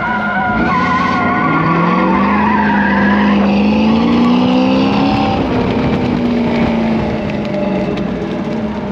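Pickup truck at full throttle on an autocross course, with the tires squealing in the first few seconds. The engine pitch climbs steadily, then eases down about five seconds in as the driver lifts.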